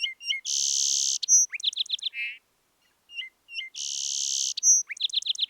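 Song sparrow singing the same song twice. Each song opens with a few short clear notes, then a long buzzy note, a quick trill of four or five notes, and a short buzz at the end.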